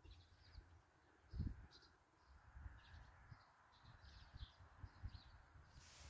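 Faint outdoor ambience of small birds chirping: repeated short high chirps through the whole stretch. Low rumbles of wind or microphone handling underneath, the loudest a low thump about a second and a half in.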